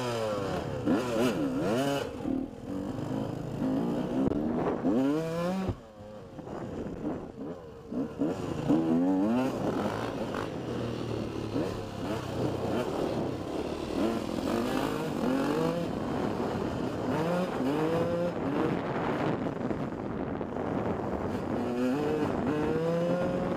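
125cc dirt bike engine revving hard and shifting up through the gears, its pitch climbing again and again. It drops off the throttle briefly about six seconds in.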